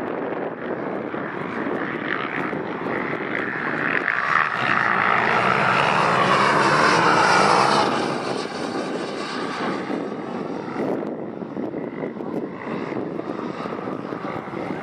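JetCat 160 model jet turbine on a Skygate Hawk radio-controlled jet flying past. Its rushing whine grows louder to a peak around the middle, then falls away as it recedes.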